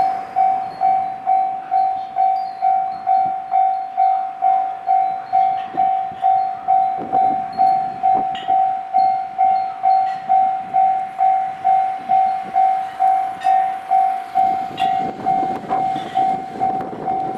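Japanese railway level-crossing alarm ringing: a steady electronic ding repeated a little over twice a second. Near the end the low rumble of an approaching train rises beneath it.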